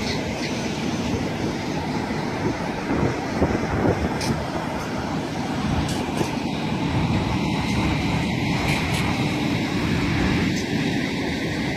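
Semi truck towing a loaded flatbed trailer driving past at road speed: a steady engine and tyre rumble, a little louder in the second half.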